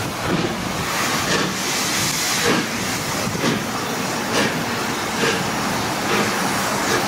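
LMS Jubilee class three-cylinder steam locomotive 45699 Galatea pulling a train slowly through a station. Its exhaust beats come roughly once a second over the steady noise of the moving train.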